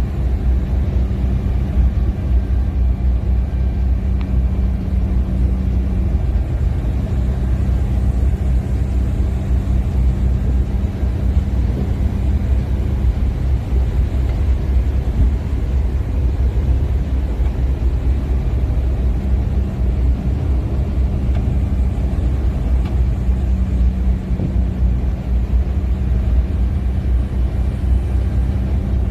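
Steady low rumble of a vehicle on the move, with a low hum that fades about six seconds in and returns past the middle.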